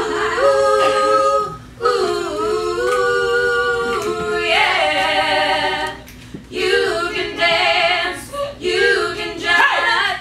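Several women's voices singing together a cappella, holding long notes, with two short breaks for breath, about two seconds in and about six seconds in.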